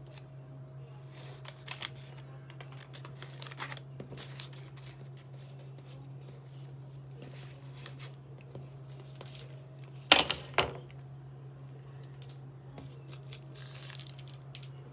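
A kitchen knife and hands working pie dough on a worktop: scattered light scrapes and taps, with one much louder clatter about ten seconds in. A steady low hum runs underneath.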